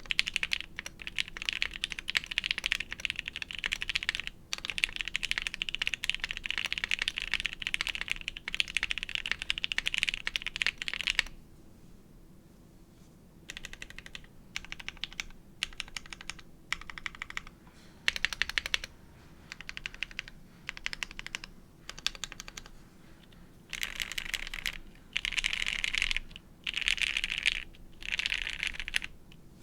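Typing on a Chimera65 mechanical keyboard with lubed Gateron Box Ink linear switches on a POM half plate, with GMK Noel keycaps. A fast, dense run of keystrokes for about eleven seconds, then short separate bursts of keys with pauses between them.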